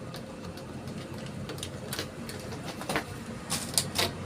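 Printer switched on for testing after a paper-cutter jam was cleared. A few short clicks and knocks come from its mechanism during start-up over a low steady hum, mostly in the second half.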